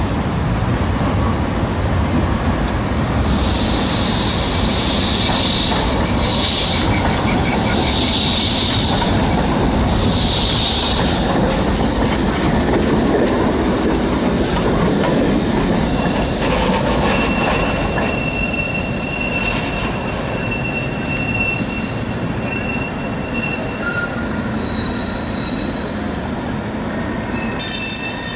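A tram running on street track, with the low rumble of the car over the rails. Its wheels squeal on the rails in four high squeals between about three and eleven seconds in, and fainter steady squeals follow as it passes.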